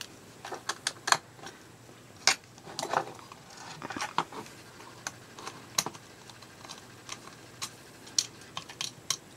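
Irregular small clicks and taps of a screwdriver and the plastic housing of an EEW Nano electric spinning wheel, as the little screws holding its motor are undone and the motor is worked free.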